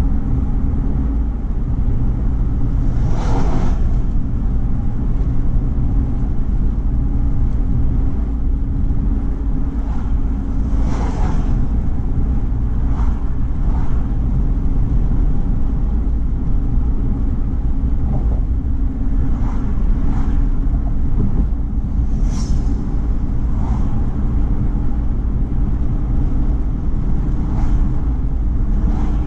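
Car driving at highway speed: a steady low rumble of road and engine noise, with a few brief rushing swishes scattered through it.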